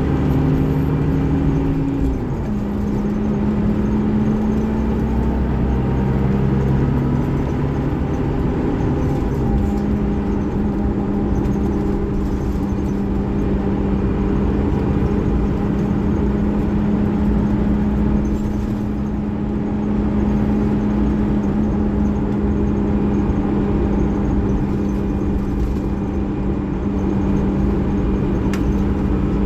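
Scania DC13 13-litre six-cylinder diesel of a bus running under way, a steady drone. Its pitch drops twice, about two seconds in and again near nine seconds, then holds steady.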